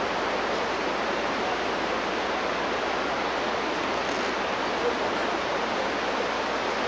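Steady rush of a fast mountain river, an even hiss of running water with no breaks.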